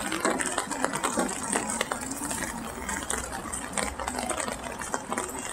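Rain pattering on an umbrella overhead: a dense, rapid, irregular ticking over a steady hiss.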